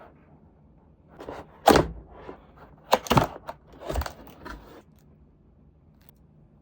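Cardboard keyboard box and its packaging being handled and opened: a few seconds of irregular thuds and knocks mixed with rustling.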